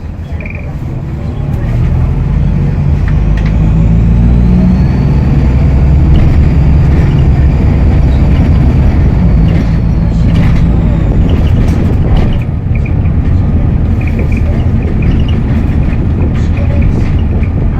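Optare Solo SR bus engine running hard under a heavy low rumble, with a thin turbocharger whistle that climbs in pitch as the engine picks up, holds, then falls away.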